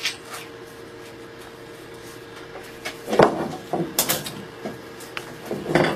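Wooden saw-frame parts being handled on a workbench: a low steady hum, then from about three seconds in a handful of short wooden knocks and clacks as pieces are picked up and set down.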